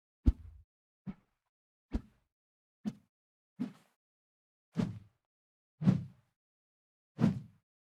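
A series of short sword sound effects played one after another: eight separate strikes about a second apart, with silence between. The later ones are longer and fuller.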